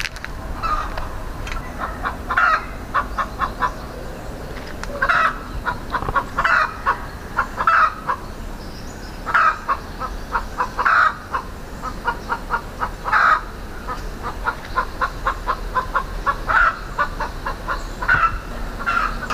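Native chicken hen cackling: runs of quick clucks broken by a louder squawk every second or two.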